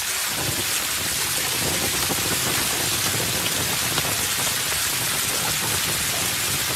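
Water splashing steadily in a plastic paddling pool, churned up by a golden retriever playing in it.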